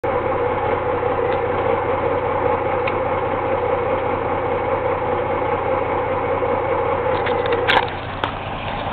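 Peterbilt truck's diesel engine idling steadily through straight pipes. A few sharp knocks come near the end, after which the engine sound is a little quieter.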